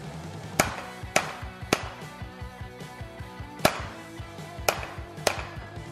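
Six sharp metal-on-metal hammer blows on a socket held against a U-joint bearing cap, driving the cap up out of a Toyota Tacoma's rear driveshaft yoke: three quick blows about half a second apart, a pause, then three more. Background music runs underneath.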